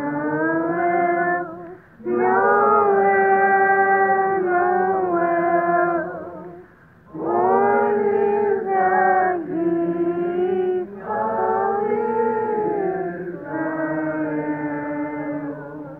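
Voices singing a Christmas carol in slow, long-held notes, with brief pauses for breath about two and seven seconds in.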